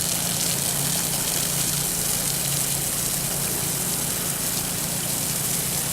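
Water hose spraying onto asphalt roof shingles, a steady hiss, rinsing off roof-cleaning chemical. A steady low hum runs underneath.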